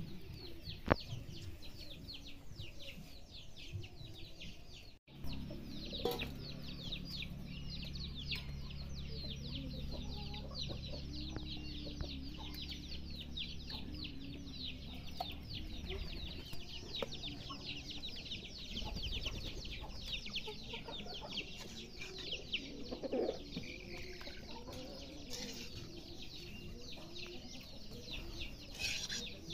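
Chickens clucking amid dense, rapid chirping of small birds. A sharp knock comes about a second in, and a low steady hum runs from about five to eighteen seconds.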